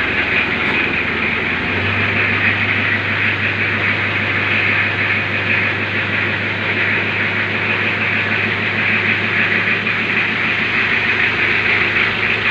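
A 1991 Isuzu Panther's four-cylinder diesel engine idling steadily while it warms up after a glow-plug cold start, with an even rhythmic beat and a steady hiss.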